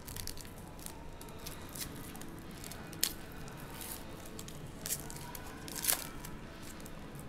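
Foil trading-card pack wrapper being crinkled and torn open by hand: crisp crackling throughout, with a sharp snap about three seconds in and louder rips near five and six seconds.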